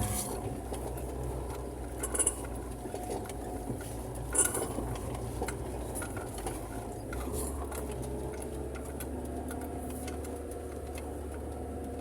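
A vehicle engine running while driving, heard from inside the cab as a steady low hum, with short knocks or rattles at the start, about two seconds in and about four and a half seconds in.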